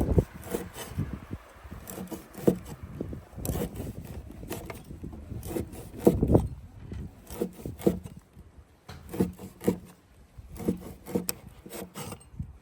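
Kitchen knife slicing through cured pork with singed skin on a chopping board: irregular rough sawing strokes and short knocks of the blade on the board. The singed skin lets it cut easily.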